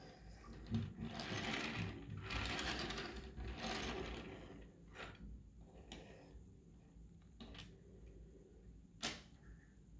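Small plastic transforming toy car (Silverlit Poli Robocar mini transformer) being handled and transformed: a run of rapid clicking and rattling of its plastic parts for about three seconds, then a few single clicks as parts snap into place.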